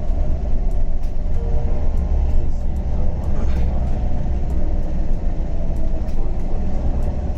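A vehicle's engine running steadily with a loud, even low rumble.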